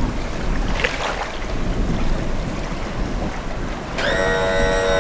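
Wind buffeting the microphone on an open beach. About four seconds in, a loud horn sounding a steady chord of several tones starts abruptly and holds.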